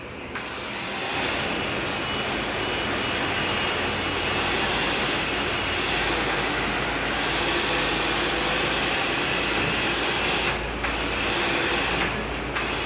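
Electric winch running steadily under load as it pulls a pickup truck in.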